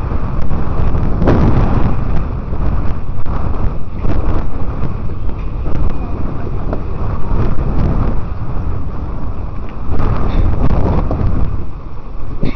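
Wind buffeting a helmet camera's microphone during a bicycle ride: a loud rush of noise that swells and eases in gusts.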